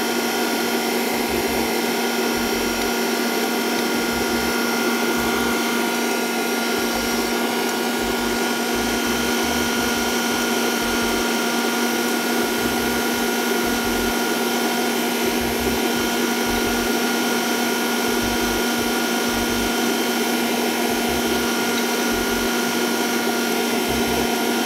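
Electric mixer running with a steady motor hum, beating eggs while sugar is added a little at a time for a fatless sponge.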